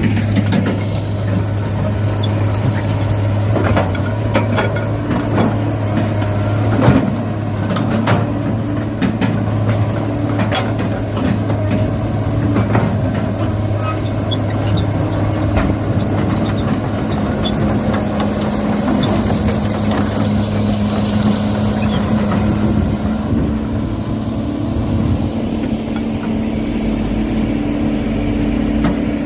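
Radio-controlled model construction machines, a dump truck and an excavator, running: a steady motor hum that shifts to a higher pitch about halfway through, with scattered clicks and knocks.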